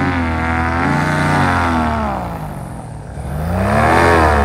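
Paramotor engine and propeller revving up and easing off twice, the pitch climbing and falling each time, as the pilot works the throttle after hitting sinking air.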